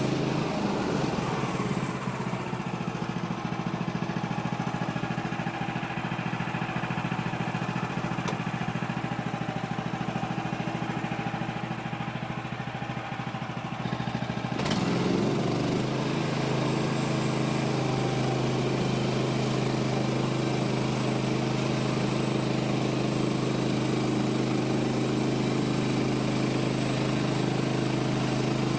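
Woodland Mills HM130 Max band sawmill's gas engine running under load as the blade cuts a pitchy pine log. The engine note drops about a second in, jumps back up about halfway through, then runs steady.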